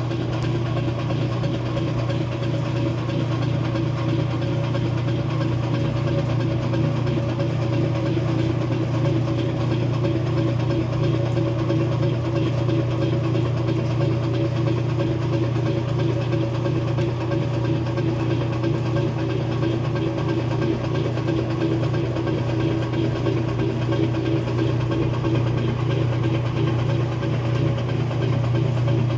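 Kenmore 70 Series washing machine draining: the drain pump runs with a steady hum and a rapid clicking noise that the owner finds abnormal and cannot explain.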